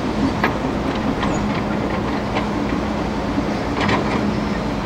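Hydraulic excavator's diesel engine running with a steady hum, over the rush of river water, with a few sharp metallic clanks from the machine as it works its boom and bucket.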